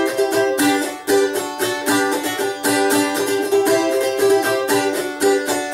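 Balalaika in folk tuning strummed in a quick, even rhythm: an instrumental break between chastushka verses.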